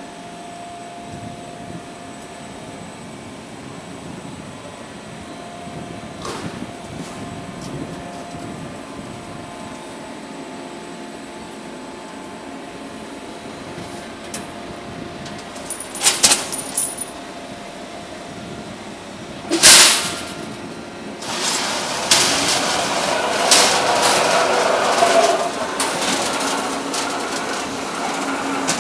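Roll forming machinery running in a steel workshop. A steady motor hum is followed, a little past halfway, by a few sharp metallic bangs, then a louder, continuous run of clatter and knocks near the end.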